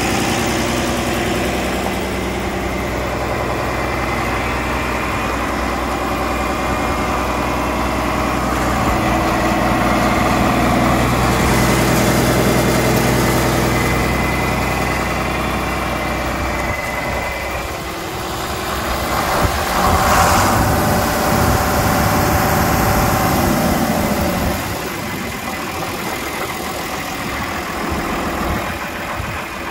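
The six-cylinder diesel engine of a John Deere 4020 tractor running at idle, with a brief louder noise about 20 seconds in.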